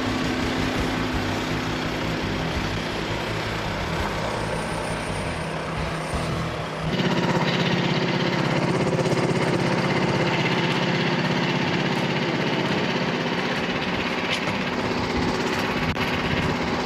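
Portable bandsaw sawmill's small gasoline engine running steadily; about seven seconds in it gets louder and its tone shifts, then holds at the new, higher level.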